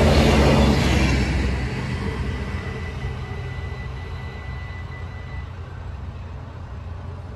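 An Alstom Coradia LINT 41 diesel multiple unit passes over the level crossing. Its diesel rumble and running noise are loud for the first second or so, then fade steadily as it moves away.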